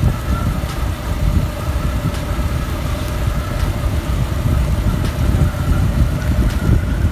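Motorcycle riding noise: a steady engine drone under heavy wind rumble on the microphone, from a Suzuki Gixxer SF's 155 cc single-cylinder engine.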